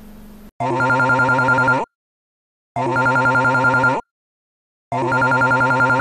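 A Samsung phone ringtone: a trilling, telephone-bell-like ring that sounds three times, about a second each, with short silences between.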